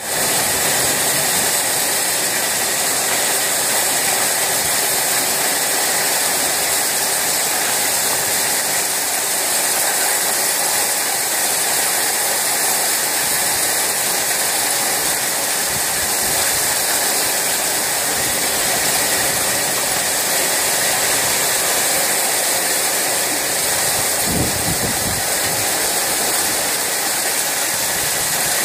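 Heavy downpour: a steady, dense hiss of rain pouring onto corrugated metal carport roofs, unbroken throughout.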